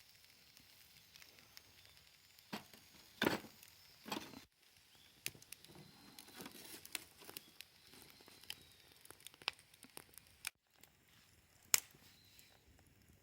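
Campfire wood crackling, with scattered sharp pops and a few louder knocks around three to four seconds in and again near the end.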